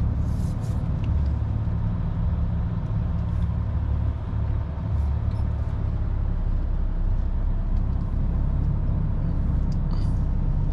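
Diesel engine of a lorry tractor unit running at low revs while it reverses slowly with a semi-trailer, heard inside the cab as a steady low rumble with a few faint clicks.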